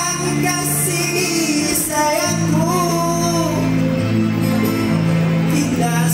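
Live song: a man singing into a microphone over electronic keyboard backing with a sustained bass line, amplified through a PA in a large hall.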